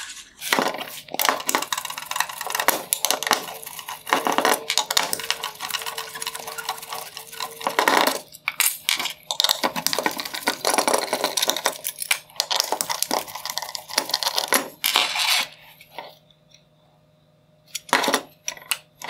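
Dense clicking and metallic clinking as a hand screwdriver backs out T25 Torx screws from a headlight's metal reflector housing and the loose metal parts are handled. There is a short quiet pause near the end.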